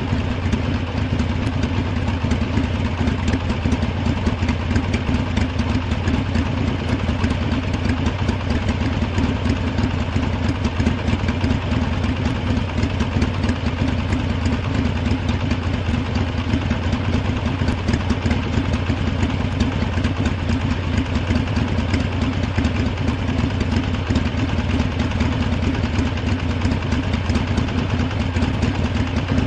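Harley-Davidson V-twin motorcycle engine idling steadily, without revving.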